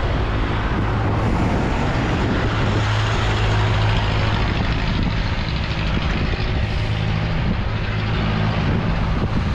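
Steady rushing of wind and road noise on a camera riding along on a moving bicycle, with a low steady hum underneath.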